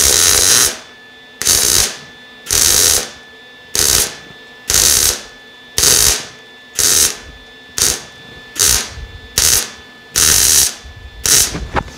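MIG welder arc on steel exhaust tubing, laid down in short stitches: about a dozen sizzling bursts of half a second to a second each, roughly one a second, with brief pauses between. The pipe is running hot and burning through a little, so the weld is put in in short bursts.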